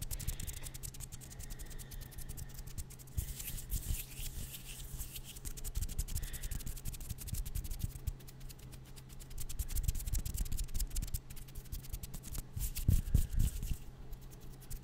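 Fast, aggressive ASMR hand sounds close to a microphone: hands rubbing and fluttering in quick crackling, rustling strokes over a low steady hum, with a few louder thumps near the end.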